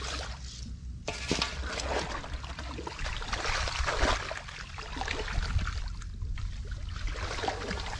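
Hands digging and rummaging in wet mud and water in a hole in the ground, a busy wet crackling and squelching that picks up about a second in.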